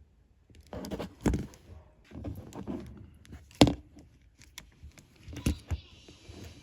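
Handling noise from a Nokia 2651 flip phone: an uneven series of knocks and clicks with some rustling, the loudest knock a little past halfway.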